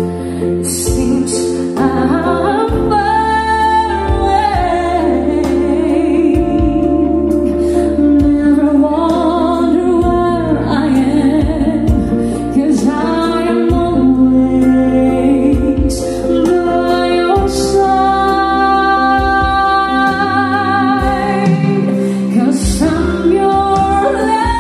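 A slow song with a woman singing over a steady accompaniment, played back through a pair of KEF Reference floorstanding loudspeakers in a room.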